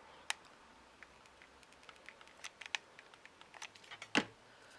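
Faint, scattered clicks and taps of small craft pieces being handled on a work surface, with a sharp tick just after the start and a louder knock about four seconds in.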